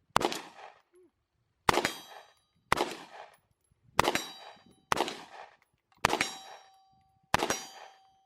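Seven gunshots fired at a target at a steady pace, roughly one a second, each cracking sharply and ringing out. The shots are really loud.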